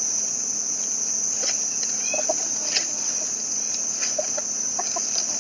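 Steady high-pitched insect drone, with a few faint short clicks and chirps scattered over it.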